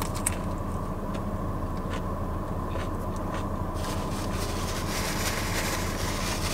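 Steady low hum of a car idling, heard inside the cabin, with a few soft clicks while she chews. From about four seconds in, a paper napkin crinkles over the hum.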